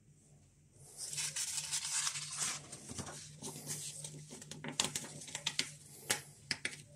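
Paper rustling and crinkling with many small clicks and taps, starting about a second in: the pages of an instruction booklet being handled and turned.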